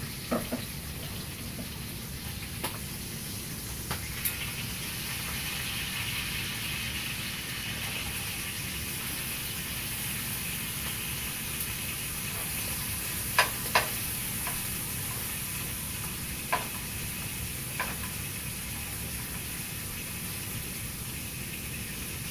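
Food sizzling steadily in a frying pan, the hiss growing a little brighter a few seconds in, with a few short sharp clicks around the middle.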